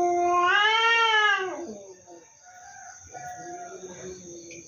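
Domestic cats yowling at each other in a territorial standoff: one long drawn-out wail that swells and rises in pitch in the middle, then falls away, followed near the end by another, quieter yowl.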